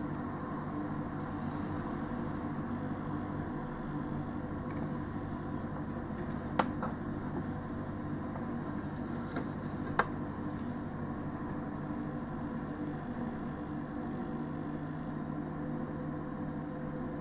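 Steady drone of a parked delivery lorry's idling diesel engine and trailer refrigeration unit, a constant hum with fixed tones. Two sharp clicks stand out about three and a half seconds apart in the middle.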